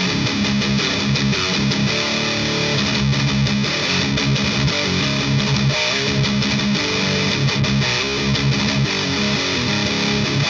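Distorted electric guitar riffing, with chugging low notes, through a Rivera Knucklehead Reverb KR100 tube amp on its channel 3 with the gain just over half and the boost engaged, pushed by an Abominable Electronics Hellmouth pedal in front.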